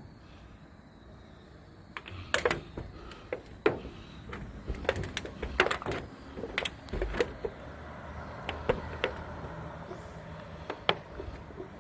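A series of irregular sharp clicks and knocks, close together, starting about two seconds in and thinning out near the end.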